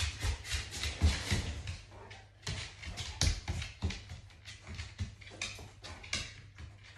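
A dog's claws clicking and tapping on a wooden floor as it walks and turns, with quick sniffing as it searches along the fronts of a washing machine and tumble dryer. Short irregular clicks come several times a second.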